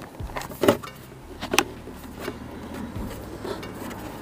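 Hard plastic knocks and clacks as an aftermarket armrest's mounting piece is pushed and fitted into a car's center console. There are two sharper knocks within the first two seconds, then smaller taps.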